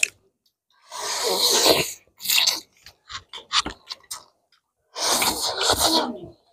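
Mouth sounds of people eating noodles and chicken: two long, loud, noisy sucking sounds, about a second in and about five seconds in, with short smacks and clicks between them.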